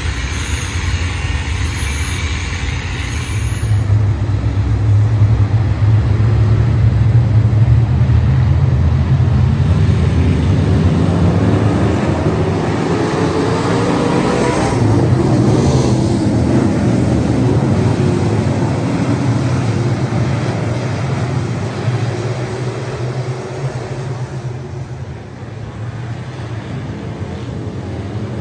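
A field of dirt-track race cars running laps, engines loud and swelling as the pack passes.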